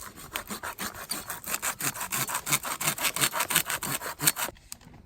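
Small hand saw cutting wood with quick back-and-forth strokes, about three a second, stopping about four and a half seconds in.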